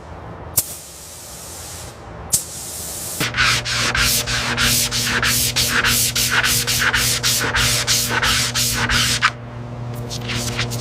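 Rhythmic back-and-forth abrasive rubbing, like hand sanding, at about three strokes a second over a steady hum. It starts about three seconds in, after a few sharp clicks, and stops shortly before the end.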